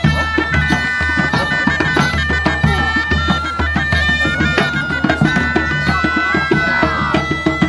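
Folk music on bagpipes and drums: a held pipe melody over a steady drone, with fast, even drumming throughout.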